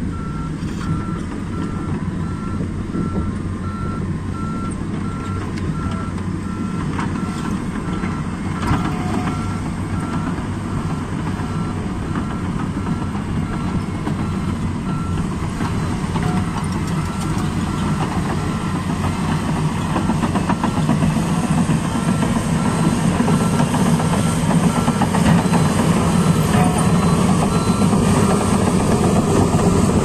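Komatsu D155A bulldozer's diesel engine running under load, growing louder over the last third as the machine comes closer. A reversing alarm beeps at an even pace through almost the whole time.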